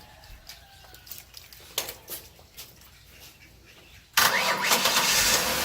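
A few faint clicks, then about four seconds in a Ford Taurus engine starts suddenly and runs steadily. It is being jump-started because its battery is flat.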